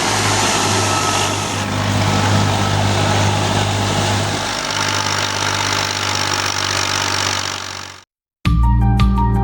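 Wheat thresher running, with a steady low engine hum under a broad, even rushing noise. It cuts off abruptly about eight seconds in, and music begins after a short gap.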